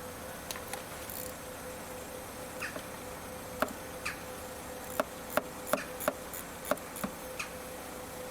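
Scattered sharp metallic clicks from a 10mm socket wrench working the positive battery terminal nut, coming irregularly and most often in the second half. A faint steady hum runs underneath.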